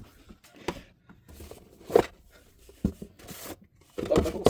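Cardboard and paper packaging of a trading-card box being handled: a few light knocks and taps, with faint rustling between them.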